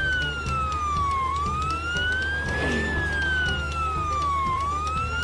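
Emergency-vehicle siren sound effect wailing slowly down and up in pitch, about three seconds to a cycle, over background music with a steady low beat.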